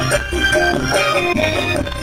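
Dangdut koplo music played live by a band, with a steady drum beat under melodic lines.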